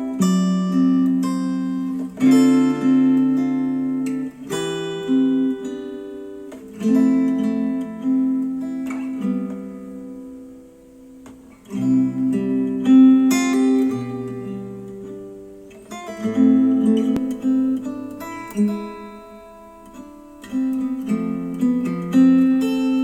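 Acoustic guitar music, chords strummed and picked in short phrases that rise and die away, played back through hi-fi bookshelf speakers.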